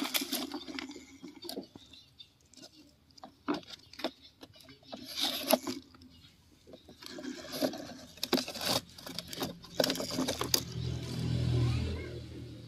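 Plastic toy tanker truck handled and pushed over dry dirt and gravel: scattered clicks and scrapes of its wheels and body, with a low rumble swelling near the end.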